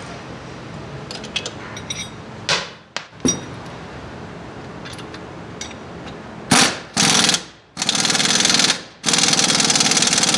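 Impact wrench hammering in four bursts in the second half, the longest about a second and a half, working on the shock absorber's mounting bolts or nuts. Before it, light metallic clicks and a couple of short knocks of tools.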